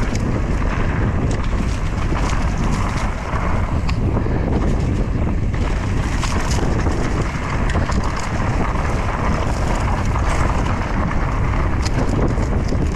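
Wind buffeting the microphone during a fast mountain bike ride, over a steady rumble of tyres on dirt, with frequent clicks and rattles from the bike on rough ground.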